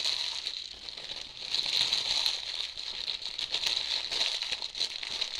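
Plastic shrink wrap crinkling and tearing as a sealed trading-card box is unwrapped, a dense run of fine crackles.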